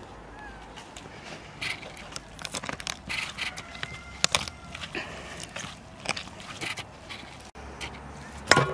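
Gloved hands working a raw whole chicken on a wooden cutting board, making many short, irregular clicks. Near the end, a loud clang of the enamel bowl that rings on.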